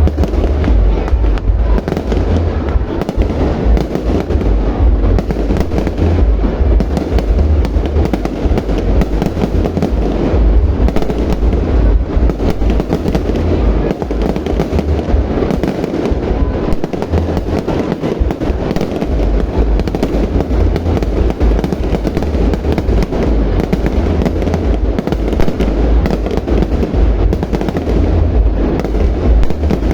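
A fireworks display with continuous, rapid bangs and crackles. The low rumble from the bursts is loud and heavy, the way it comes through a phone microphone.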